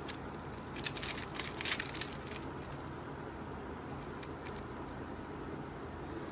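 Plastic Rubik's cube layers clicking and rattling as they are turned, a quick flurry of turns about a second in, then only a few faint clicks over steady room hiss.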